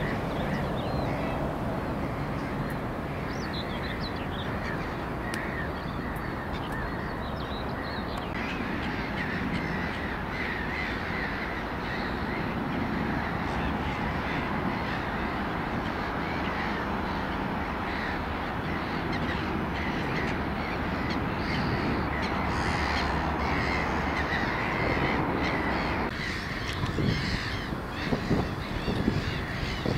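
Birds calling, crows among them, over a steady outdoor background rumble and hiss. Near the end, low gusts of wind buffet the microphone.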